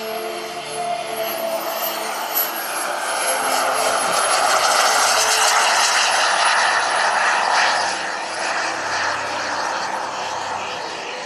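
JetCat P-180Rxi turbines of two 1:4-scale Aero L-39 Albatros model jets flying past: a high turbine whistle over a rushing jet noise that swells to its loudest around the middle and then eases off.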